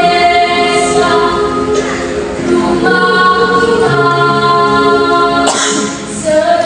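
Junior high school choir singing in parts, holding chords that change every second or two, with a brief break for breath about five and a half seconds in before the voices come back in on a rising note.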